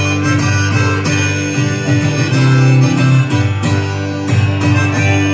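Steel-string acoustic guitar strummed with a rack-held harmonica playing sustained notes over it: an instrumental passage of a live folk song.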